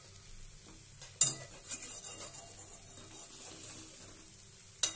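Flat metal spatula stirring a thick potato-and-masala mix in a metal kadai, with a low sizzle. A sharp knock of the spatula against the pan about a second in is followed by a brief burst of louder sizzling, and two more knocks come near the end.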